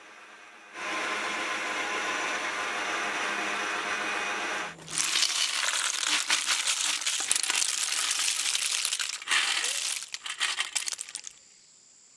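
A metal pot of freshwater snails at a steady boil. About five seconds in, the boiled snails are tipped out into a woven bamboo basket: many small shells clattering against the basket and each other as the water drains through, loud and dense at first, then a few last scattered rattles, stopping about a second before the end.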